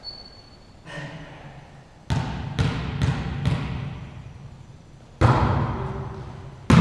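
A volleyball being struck by hands and arms in play: about five sharp smacks spread over the rally, each ringing out in the hard echo of a gymnasium.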